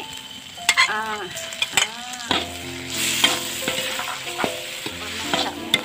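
Freshwater mussel meat hitting a hot wok of frying spice paste and sizzling, while a spatula scrapes and stirs it around the pan. Pitched tones that arch up and down sound over the sizzle in the first two seconds.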